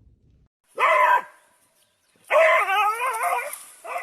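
A dog vocalizing: one short call about a second in, then a longer call with a wavering pitch from about two and a half seconds, followed closely by another near the end.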